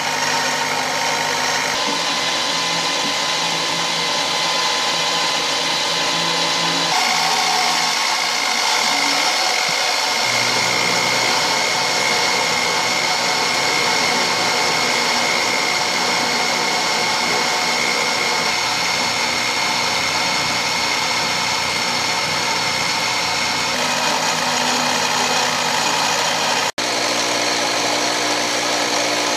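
Mini milling machine running, its end mill cutting a long groove along a metal block, with a steady high motor whine over the noise of the cut. The pitch and mix of the sound shift a few times, and it breaks off for an instant about 27 seconds in.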